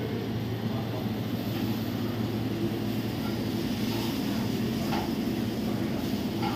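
Steady hum and drone of running machinery in an equipment room (refrigeration units and pumps), with a low drone and a higher buzzing tone, and a couple of faint clicks near the end.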